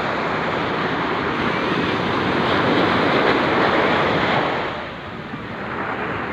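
Surf breaking and washing up the shore, a steady rush that swells through the middle and eases off about five seconds in, with wind buffeting the microphone.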